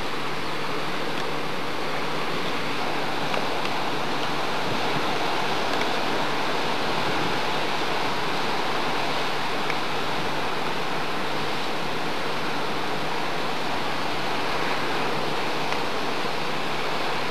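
Steady, even rushing noise of ocean surf and wind.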